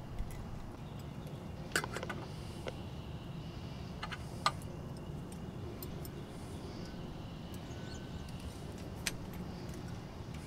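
A few light metallic clicks as a folding hex-key set knocks against a chrome Delta shower-valve handle while its set screw is worked, over a steady low background hum.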